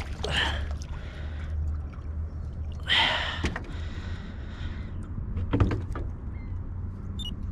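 A freshwater drum splashing at the surface beside a small aluminum boat as it is lifted out, followed by a scuffing burst about three seconds in and a sharp knock near six seconds as the fish is handled on the line, over a steady low hum.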